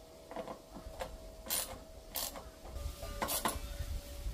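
Short strokes of a ratchet and metal clicks from hand tools tightening the bolts of a motorcycle windscreen riser. There are about five sharp clicks and rasps; the loudest come about one and a half, two and three and a quarter seconds in.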